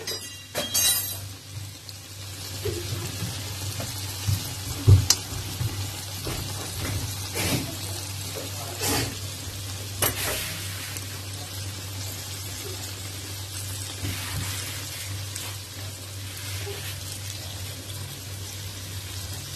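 Breaded chicken cutlets shallow-frying in oil in a wok, giving a steady sizzle with a handful of brief sharp clicks in the first half. The cutlets are near the end of cooking.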